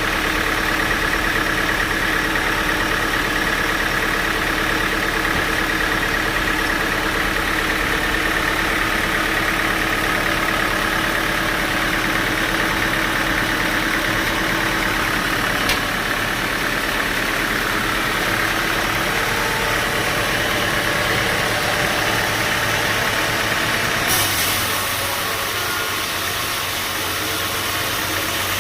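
Band sawmill running steadily: a constant machine drone with a high whine. Near the end the low hum drops away and a brighter hiss takes over.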